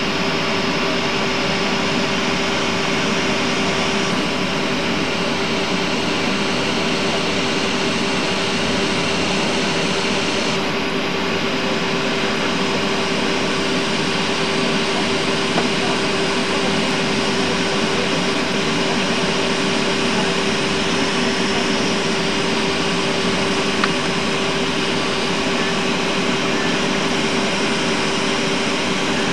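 Cabin noise of a Boeing 707-300 taxiing on its Pratt & Whitney JT3D turbofans at low power: a steady rushing whine with a constant hum-tone running through it.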